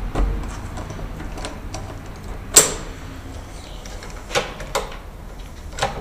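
Metal door-lock hardware clicking and knocking as a latch is fitted and clipped into a door: one sharp click about two and a half seconds in, then a few lighter clicks.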